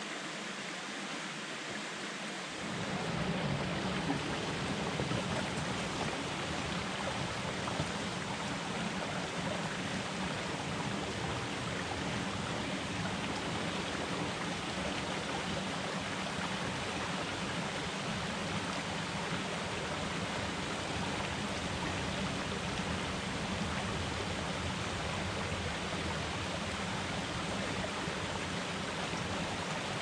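Small rocky creek running over boulders in little cascades: a steady rush and splash of water, which becomes fuller and louder about two and a half seconds in.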